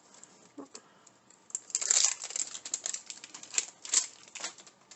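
Plastic blind-box packaging crinkling and rustling in hand as it is opened, with a run of sharp clicks and crackles, loudest about two seconds in and again near four seconds.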